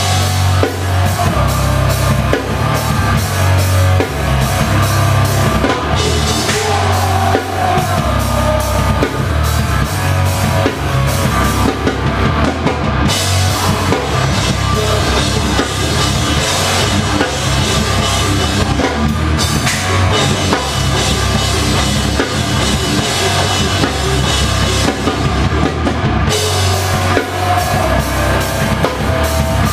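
Live rock band playing a heavy song. The drum kit is loudest and up close, driving with bass drum and cymbal crashes over a steady low bass.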